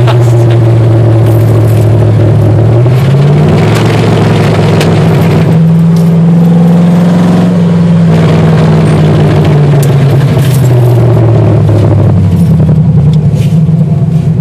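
1957 Chevrolet Bel Air's small-block V8 running straight off open headers with no exhaust pipes, heard from inside the cabin and extremely loud. The revs climb about three seconds in, hold, then ease back down to a steady lower note by about twelve seconds.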